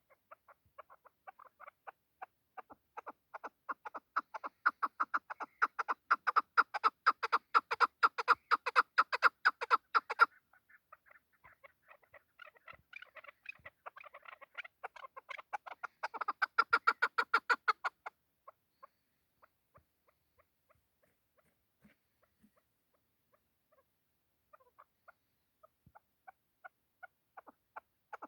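Chukar partridge calling: a rapid run of clucking notes, about five a second, that builds up and grows loud, then breaks off suddenly about ten seconds in. A second, shorter run follows a few seconds later, and after it only scattered single notes.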